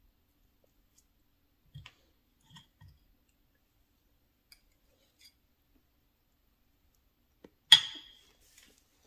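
A metal fork set down on a glazed ceramic plate: one sharp clink with a short ring near the end, after a few faint soft clicks.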